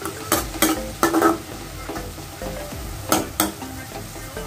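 Perforated metal spatula scraping and knocking against a metal kadai as shredded vegetables are stirred and fried in oil and ghee, under a steady sizzle. The strokes come in quick pairs, near the start, about a second in and again past three seconds.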